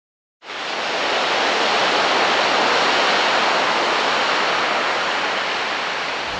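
Ocean surf breaking around a sea rock: a steady wash of noise that starts after a brief silence about half a second in.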